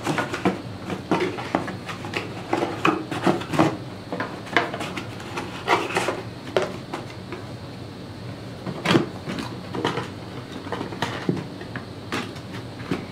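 Cardboard packaging being handled as a boat propeller is unpacked: repeated rustling and scraping of the box and its cardboard insert, with scattered knocks and clunks.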